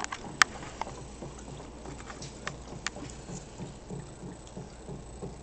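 Homemade HHO electrolysis generator bubbling, an irregular patter of gas through water and tubing, with a few sharp clicks from the plastic bottle and tubing being handled, the loudest about half a second in.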